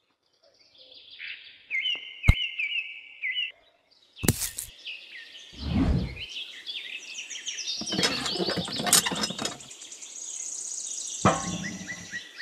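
Small birds chirping and tweeting in quick repeated phrases, with a few short thumps from miniature parts being handled.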